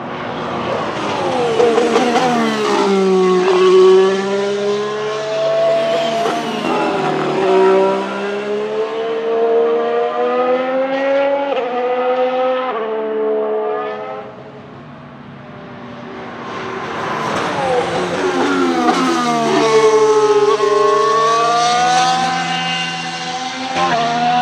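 2019 McLaren MCL34 Formula One car with its Renault E-Tech 19 turbocharged V6 hybrid engine, driving at speed. The revs fall as the car slows for the corner, then climb in steps with quick upshifts as it accelerates away. After a brief fade about halfway through, the engine comes back, dropping and then rising again as it accelerates once more.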